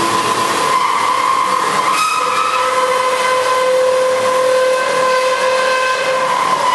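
Alligator HD620 SAF heavy-duty horizontal bandsaw cutting through a structural steel beam with its 41 mm blade: a steady whine of several held tones over a hiss. A lower tone joins about two seconds in.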